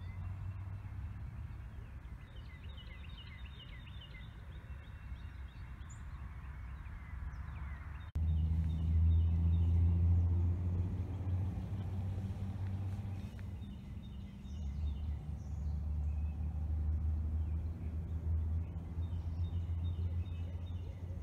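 Outdoor ambience of a low, steady rumble that jumps louder about eight seconds in, with songbirds calling in quick series of short high chirps.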